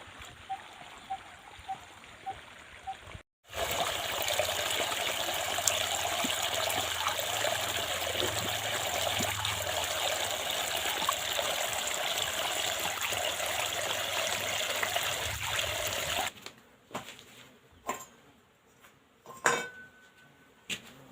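Irrigation water pouring steadily, the even rush starting suddenly about three seconds in and cutting off abruptly near the end. It is preceded by faint, regular ticking and followed by a few scattered knocks.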